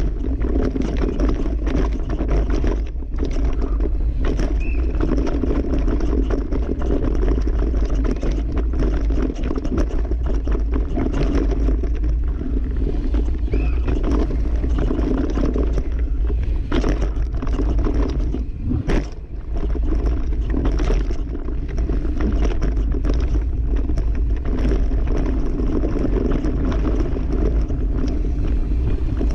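Downhill mountain bike ridden fast over a dirt and root-strewn trail, heard close up from the bike: wind buffeting the microphone and tyres rumbling over the ground, with the chain and frame rattling and clattering over bumps. The noise dips briefly a little past halfway.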